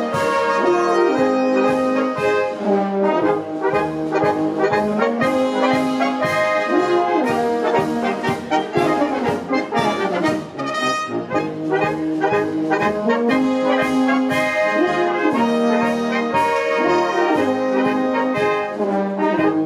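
Brass band music: held brass chords and melody over a steady beat.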